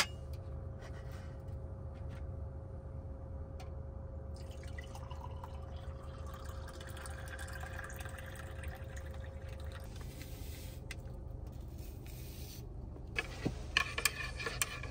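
Hot water poured from a small metal pot into a ceramic mug, the pour rising in pitch as the mug fills. Near the end a metal utensil clinks quickly against the mug, stirring the drink. A steady low hum runs underneath.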